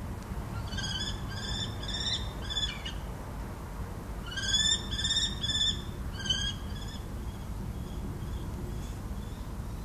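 Common kestrel calling: two runs of sharp, repeated high "kee" notes, about two notes a second, the first starting about a second in and the second about four seconds in.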